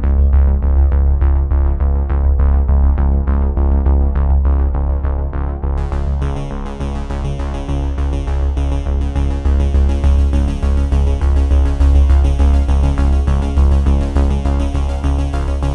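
Electronic background music: synthesizer over a heavy bass and a steady beat, growing fuller and brighter about six seconds in.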